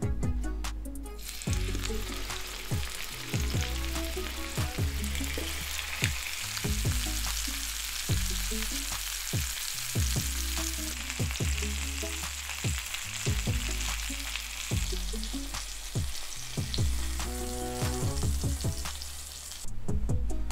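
Chicken drumsticks sizzling as they fry in olive oil in a pan, starting about a second in and cutting off just before the end. Background music with a steady beat plays underneath.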